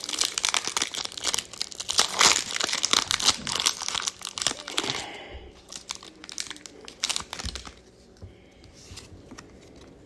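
Foil booster-pack wrapper crinkling and tearing open, a dense crackle for about the first five seconds, then a few scattered crinkles and taps that die away near the end.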